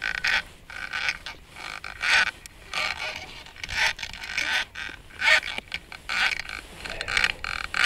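Small ice-fishing reel being cranked by hand while reeling in a hooked ide, giving irregular creaking and scraping bursts, about one or two a second.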